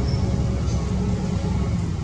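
Steady low rumble of a running engine.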